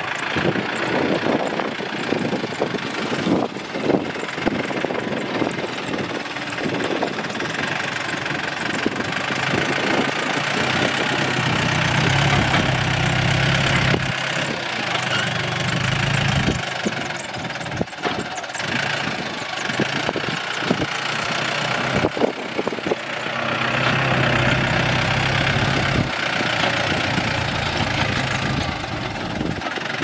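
Farm tractor engine running steadily with frequent sharp clattering knocks. A deeper, louder engine note swells twice, once in the middle and again later on.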